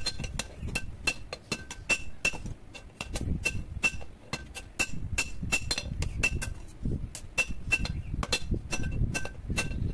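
Hand hammer striking a red-hot steel blade on a steel anvil during forging: a rapid, uneven run of sharp metal blows, several a second, each with a short ring. The blade is being drawn out from an old power-tiller plough share.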